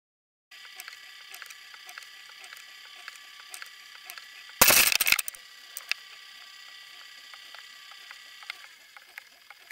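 Underwater sound picked up by a fishing camera trolled at depth: a faint steady whine made of several held tones, with scattered light ticks. About five seconds in, a loud half-second knock and rattle.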